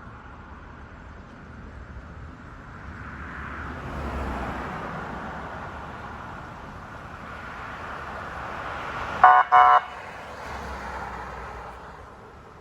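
Road traffic going by, then two short car-horn honks in quick succession about nine seconds in: a friendly greeting honk from a 2015 Dodge Durango medic vehicle.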